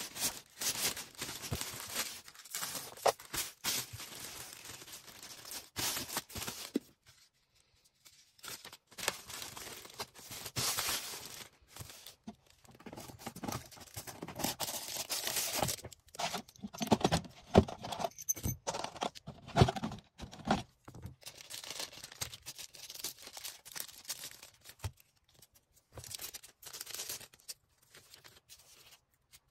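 Plastic packaging being handled while orders are packed by hand: irregular crinkling and rustling with tearing sounds, in uneven bursts separated by short pauses.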